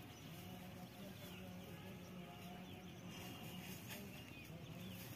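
Faint outdoor ambience: scattered small bird chirps over a low steady hum.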